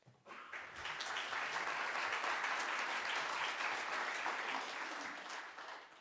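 Audience applauding, starting right away, holding steady, then dying away near the end.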